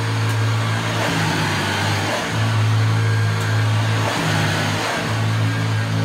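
Hoover Junior U1012 upright vacuum cleaner running: a steady motor hum over the hiss of rushing air. The hum's low tone breaks briefly a few times.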